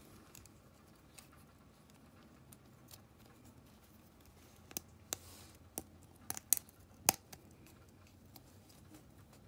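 Small plastic and metal slot car parts clicking as the motor plate is fitted back into an HO chassis: a quick run of sharp clicks in the middle, the loudest about seven seconds in.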